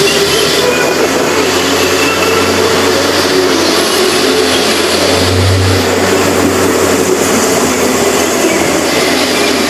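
Hyundai H100 pickup driving with its engine running steadily, with a strong low rumble throughout.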